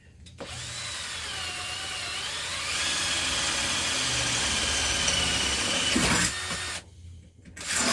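Electric drill boring a hole through the power strip's metal back plate. The motor whine rises in pitch over the first couple of seconds, holds steady, and stops suddenly about seven seconds in. A short second burst of the drill follows near the end.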